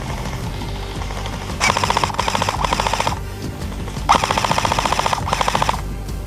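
Airsoft gun firing on full auto: two rapid bursts of about a second and a half each, about a second apart. Music plays underneath.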